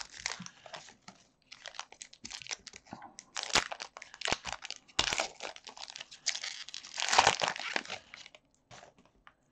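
Foil booster-pack wrapper being torn open and crinkled by hand: irregular crisp crackles and short bursts of rustling, fading out in the last second.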